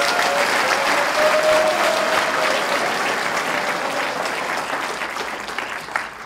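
A large hall audience applauding, the clapping dying away near the end.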